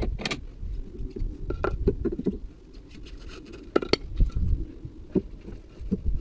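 Scattered knocks and clatter of a wooden block and tools being handled against the van's suspension and the paving, the sharpest knocks about four seconds in, over a low rumble.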